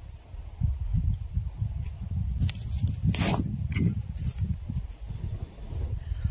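Wind buffeting the microphone in irregular low gusts, over a steady high insect drone, with a short hiss about three seconds in.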